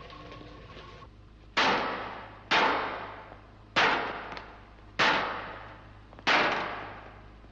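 Heavy blows against a metal airlock door: a creature battering it in an attempt to break through. Five echoing strikes a little over a second apart, each one ringing away before the next.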